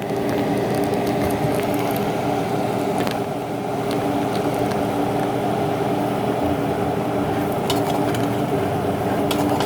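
Onion and ginger sautéing in a pan, with a few light clicks of a utensil against the pan, over a steady low mechanical hum.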